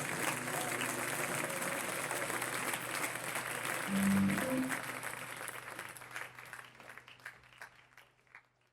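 Audience applauding at the end of a live band performance, the applause thinning and fading away over the last few seconds, with a brief low note about four seconds in.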